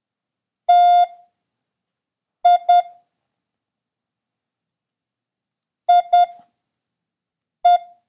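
Morse code practice tone sending single letters with long gaps between them: one dah, then two dits, two dits again, and one last dit, the letters T, I, I and E. The beeps are clean and steady in pitch.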